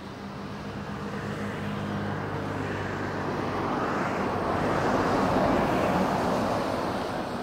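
Twin turbofan engines of a Pilatus PC-24 jet at takeoff power. The jet noise swells to a peak about five seconds in, then eases a little.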